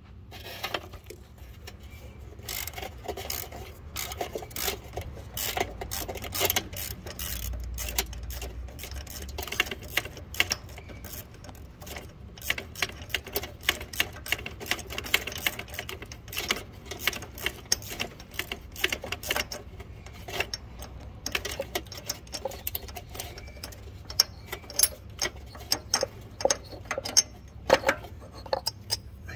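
Ratchet clicking in quick runs as a socket on a long extension backs bolts out, with a few sharper clicks in the last few seconds.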